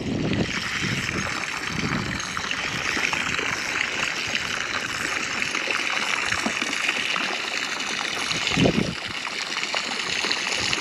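Steady splashing and trickling of water close to the microphone, with a few low thumps, the loudest near the end.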